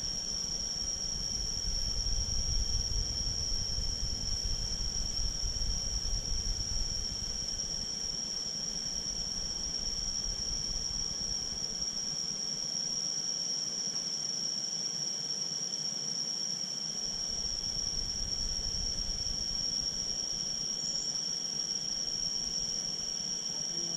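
A steady, high-pitched insect drone that holds one even pitch throughout, with a low rumble in the first seven seconds or so.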